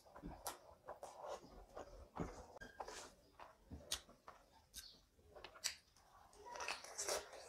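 Close-miked eating sounds: fingers mixing basmati rice with chicken curry on a plate, and a mouth chewing with small wet clicks. The sounds come as irregular short clicks, with a fuller stretch near the end as a handful goes into the mouth.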